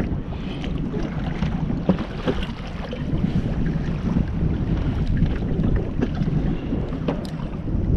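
Wind buffeting the microphone on open water, a heavy low rumble, with choppy sea washing against the kayak and a few light clicks.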